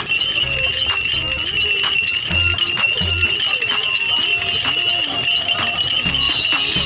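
Small bells on a sugarcane juice crushing machine jingling without a break as the rollers turn.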